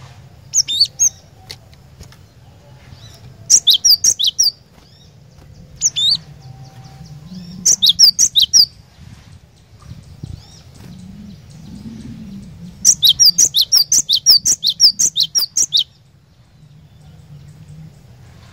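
Cinereous tit (glatik batu) singing: several bursts of quick, high, repeated notes, with the longest run, about three seconds of rapid notes, starting about 13 seconds in.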